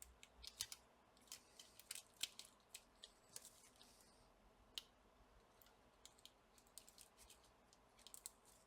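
Faint, irregular small clicks and crackles of Kapton tape being handled and pressed onto a laptop circuit board.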